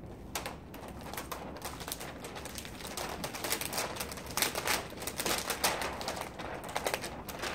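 Plastic backing liner of a sheet of window vinyl film crinkling and crackling as it is handled and peeled from the film, in fast irregular clicks that grow busier from about three seconds in.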